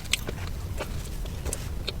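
Close-miked eating of cake: irregular wet mouth clicks and smacks from chewing over a steady low hum.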